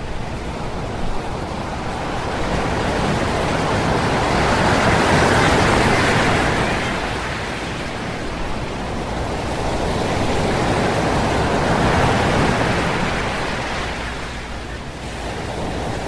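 Ocean surf on a beach: waves break and wash up the shore in a steady hiss. The surge swells to a peak twice, about six seconds apart, and ebbs between.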